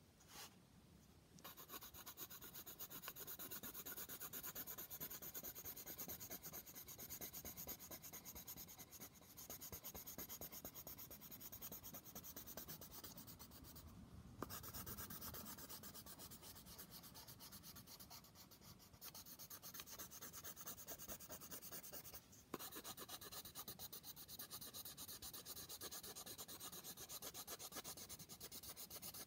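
Green coloured pencil shading on paper: fast back-and-forth scratching strokes, starting a second or so in and stopping briefly twice.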